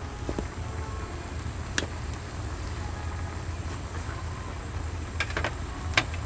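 Steady low rumble with a few sharp clicks, typical of cooking at a street-food stall: one click about two seconds in, a small cluster a little after five seconds and the loudest just before the end.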